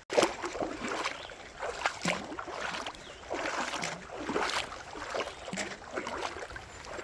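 A hiker's footsteps on the trail, uneven swishing steps about one or two a second.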